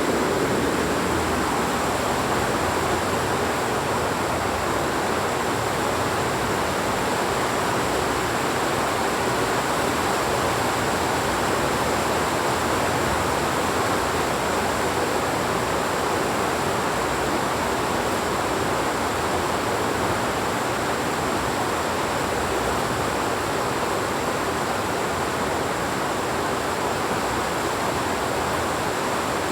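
Heavy rain falling, a steady, even hiss that does not change.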